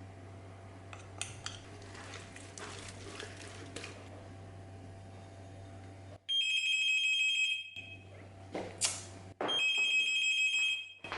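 Telephone ringing twice, each ring lasting about a second and a half, after several seconds of low hum with faint clicks.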